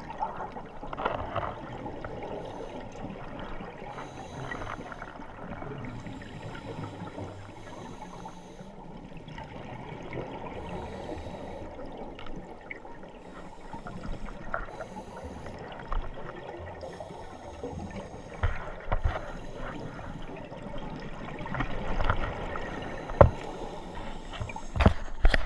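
Muffled underwater noise picked up by a camera in its housing, with the soft gurgle of a scuba diver's exhaled regulator bubbles coming every few seconds. A few sharp knocks near the end.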